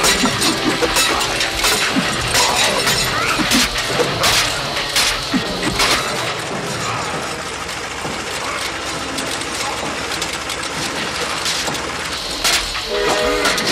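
Film fight sound effects: a string of sharp crashes, clanks and breaking-glass sounds in quick succession, easing into a steadier mechanical clatter in the middle, with sharp crashes again near the end.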